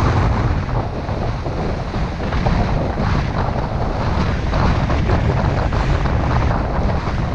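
Storm wind buffeting the microphone in heavy, gusting rumbles, over lake waves washing and breaking against the rocks of a stone jetty.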